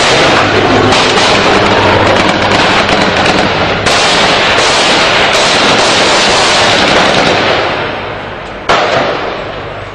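Loud, heavy sustained gunfire, many weapons firing at once in dense overlapping shots. It dies down after about seven and a half seconds, with one sharp loud report near the end.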